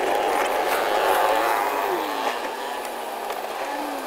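City street traffic with small motor vehicle engines running. One engine's pitch rises and then falls about halfway through, and a steadier, lower engine tone holds near the end.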